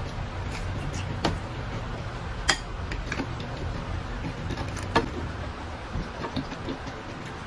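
A person eating by hand: chewing and mouth sounds, with a few sharp clicks, the loudest about two and a half and five seconds in, over a steady low hum.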